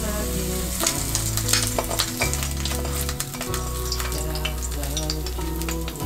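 A fried egg sizzling and crackling in a frying pan while a utensil scrapes it out onto a bowl of rice porridge; the crackling is busiest from about one to three seconds in.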